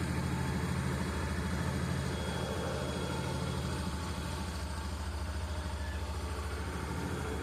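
Yamaha Fazer 250's single-cylinder Blueflex engine idling steadily, with a faint high-pitched whistle over the running: a small whistling noise whose cause the owner has not found.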